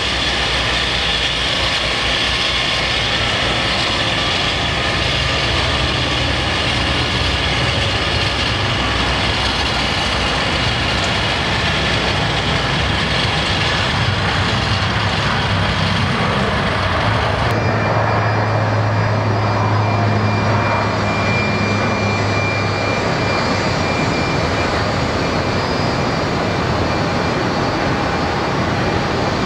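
Boeing 757 jet engines running, a steady loud rush with a faint high whine. A little over halfway through, the sound switches abruptly to another aircraft's engines, with a steady low hum and a thin high whistle.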